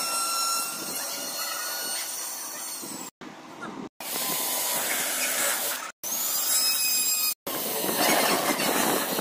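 Cordless drill whining as it spins up and runs while boring into the edge of a wood panel. It comes in several stretches that start and stop abruptly, some opening with a rising whine.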